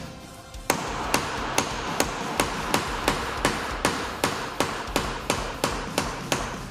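A hammer striking repeatedly and steadily, about three blows a second, starting under a second in.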